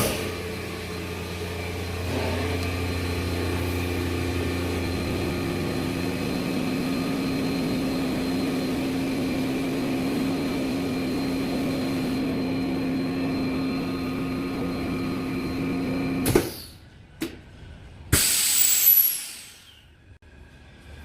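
Double-chamber vacuum packaging machine's vacuum pump running with a steady hum while it draws down the chamber. About 16 seconds in it stops with a sudden clunk and a click. A loud hiss follows as air rushes back into the chamber, releasing the vacuum at the end of the cycle.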